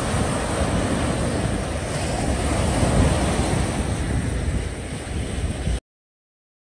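Small waves breaking and washing up a sandy beach, with wind rumbling on the microphone. The sound cuts off suddenly near the end into silence.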